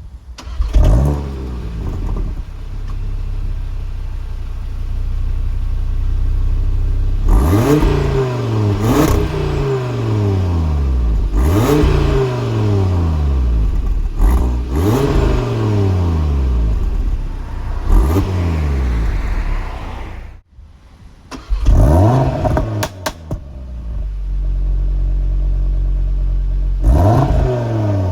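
Audi inline five-cylinder engine starting and being revved in neutral: several free revs, each snapping up and then falling slowly back to a steady idle. After a short break about 20 seconds in, an engine starts again, is blipped twice quickly, idles, and is revved once more near the end.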